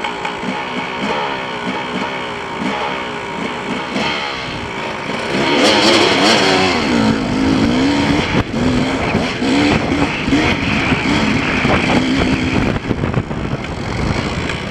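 KTM 250 EXC two-stroke dirt bike engine revving up and down while riding a rough trail. It gets louder about a third of the way in as the throttle opens.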